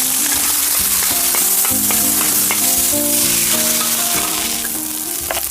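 Food frying in a hot pan with a steady loud sizzle, a utensil clicking against the pan now and then as it is stirred. A soft melody plays underneath.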